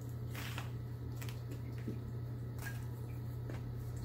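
A person chewing a mouthful of crispy fried chicken sandwich: a few scattered soft crunches and mouth clicks over a steady low hum.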